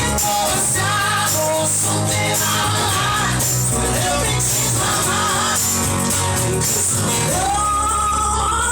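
Live rock band playing a song, dense and loud, with a sung vocal line over it; near the end the singer holds a long, wavering note.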